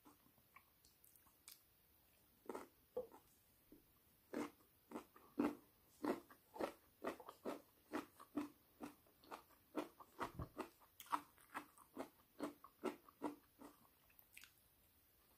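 Close-miked biting and chewing of a flat peach: short, soft mouth sounds at roughly two a second, starting a couple of seconds in.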